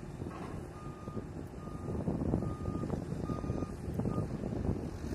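A vehicle's reversing alarm beeping, about four or five short beeps roughly two-thirds of a second apart, over a steady low rumble.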